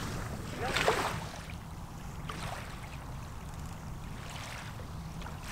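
Shoreline ambience: a steady low wind rumble on the microphone, with one short, faint cry about a second in.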